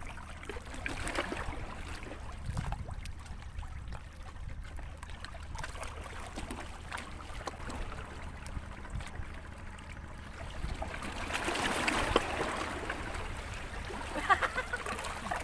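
Seawater lapping and trickling at the shoreline, with a louder rush of splashing water about two thirds of the way through.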